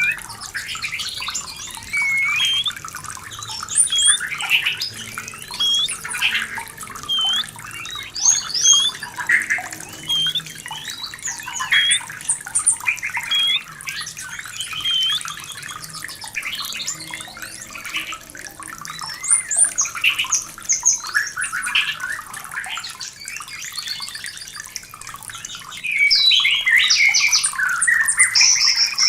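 White-rumped shama in breeding condition singing a long run of varied whistled notes, glides and chattering phrases, becoming busier and louder near the end, over a steady trickling-water background.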